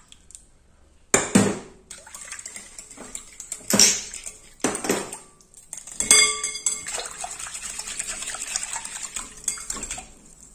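Wire whisk knocking and clinking against a glass mixing bowl several times, one clink ringing briefly, then steady rapid whisking of a thin milk-and-oil mixture for about three seconds near the end.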